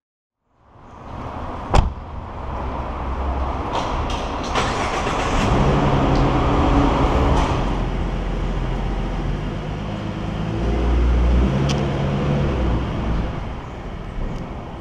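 Car engine and tyres as a 2015 Ford Mustang drives slowly through a parking garage and out to the street, the engine swelling twice as it pulls away. A sharp click comes about two seconds in.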